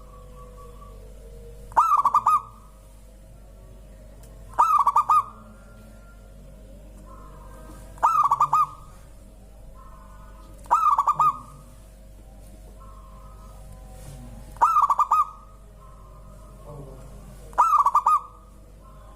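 Zebra dove (perkutut) cooing: a short, loud trilled phrase repeated six times, about every three seconds. Fainter calls from other birds come in between.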